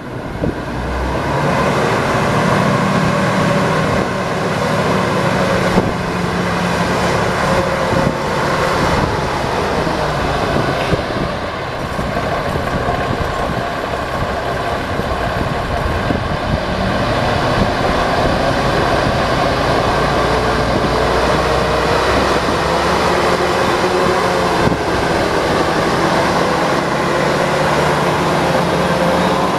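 Cummins 10-litre inline-six diesel engine of a 1989 Ford L9000 concrete mixer truck running, loud and steady, coming up about a second in.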